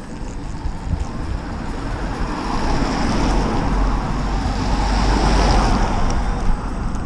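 Wind rushing over the microphone and tyres hissing on a wet road while riding, with a car passing close by. The noise builds to its loudest around five to six seconds in.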